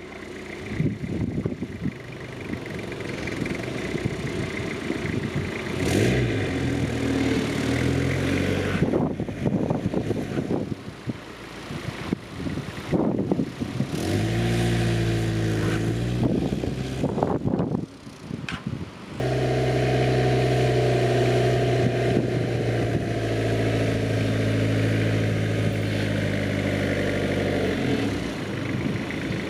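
The homebuilt Landrunner's engine running on a drive, revving up and dropping back several times, then holding a steady pitch for the last third.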